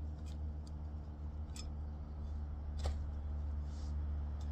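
Hands sifting through potting soil in a grow bag while checking it for grubs: scattered light clicks and rustles, about one a second, over a steady low hum.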